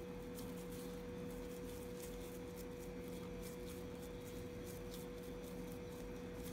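A steady electrical hum, with faint soft squishing and clicking from hands pressing mashed potato and corn mixture into balls.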